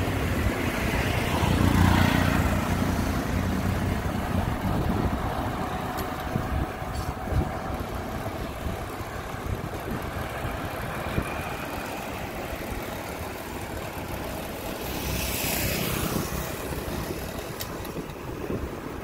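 Road traffic heard while moving along a city street: a steady rumble of engines and tyres. A motor vehicle passes close about two seconds in, the loudest moment, and another passes about three-quarters of the way through.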